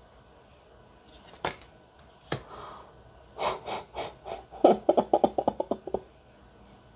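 Tarot cards being handled: a few sharp taps and slides as one card is swapped for the next, then a quick run of about a dozen clicks, roughly ten a second.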